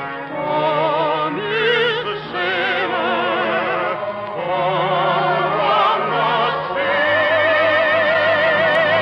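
Operatic soprano singing with orchestra: a slow phrase with wide vibrato, ending about two-thirds of the way in on a long, high held note.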